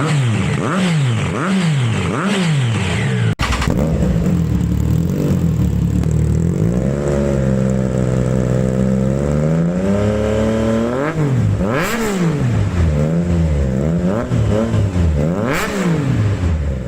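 Triumph Daytona 675R's 675 cc inline-three engine revved through an aftermarket exhaust. There are quick blips up and down, then, after a cut about three seconds in, a rev held steady and high for a few seconds that climbs further before dropping. A string of quick blips follows.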